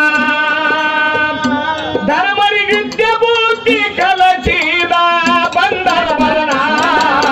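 A man singing a Kannada dollina pada folk song. He holds one long note, then sings a melodic line with a wavering pitch, accompanied by regular hand-drum strokes.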